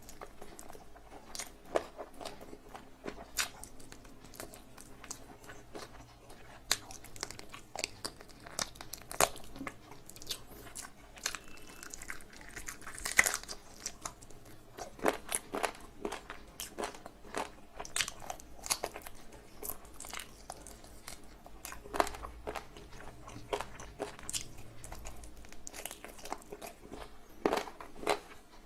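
Close-up eating sounds: a person chewing big mouthfuls of egg fried rice and spicy chicken curry, with wet smacking and many sharp irregular clicks of mouth and teeth.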